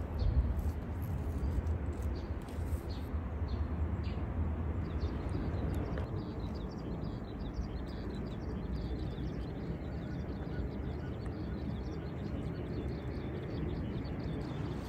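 Outdoor garden ambience: small birds chirping over a steady low rumble. In the first few seconds there are a few sharp clicks, snips of garden scissors cutting back spent flowers.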